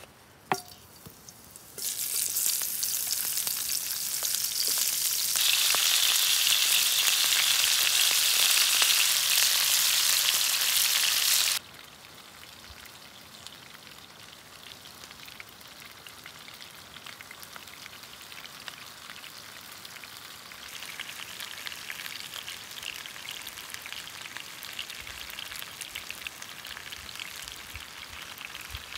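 Sliced onions and green peppers frying in hot oil in a pan over a campfire: a loud sizzle starts about two seconds in, after a short click, and grows louder a few seconds later. It breaks off suddenly, and a quieter, crackling frying sizzle follows that grows louder again near the end.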